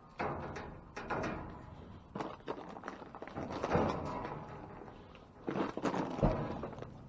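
Plastic trash bags and cardboard boxes rustling and shifting under a person climbing into and moving around inside a dumpster, with scattered knocks and footsteps and one heavy thud about six seconds in.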